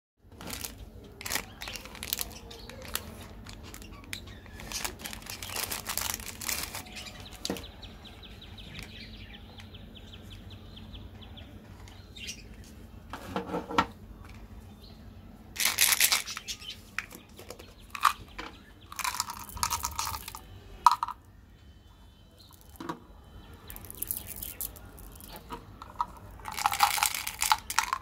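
Plastic snack wrappers crinkling and tearing open as candy and cookie packets are unwrapped by hand, with scattered clicks and taps from packets and a small plastic candy bottle being handled.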